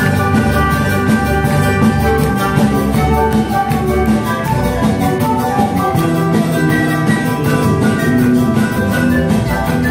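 An Andean folk band playing: panpipes, charango and acoustic guitar with drums, at a steady beat.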